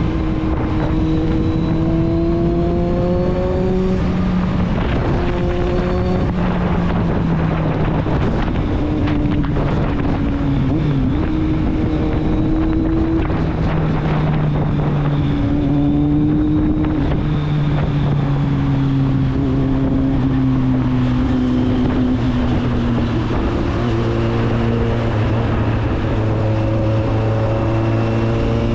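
Kawasaki Z750's inline-four engine and exhaust on the move. The engine pitch climbs and then drops sharply several times as the bike accelerates and shifts, and it sinks slowly through the middle as the bike eases off.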